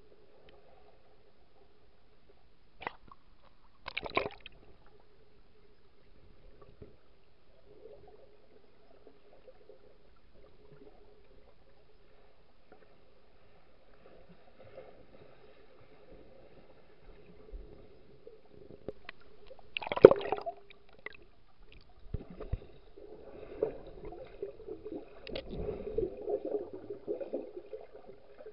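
Muffled underwater sound in a lake: a faint steady hum with water noise, a few sharp knocks early on, one loud knock about two-thirds of the way through, then bubbling and gurgling water as a snorkeler swims past near the end.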